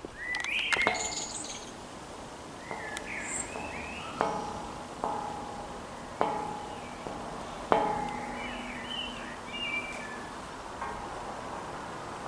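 Small birds chirping in short calls, with four sharp metallic strikes in the middle stretch, each leaving a ringing tone that fades within about a second.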